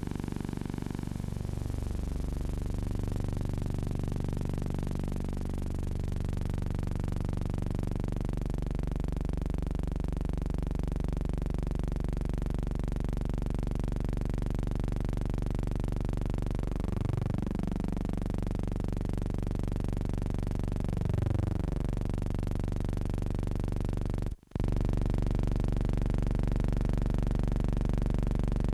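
Steady low hum with several overtones and a few slow sweeping shifts in tone. It cuts out for a moment near the end.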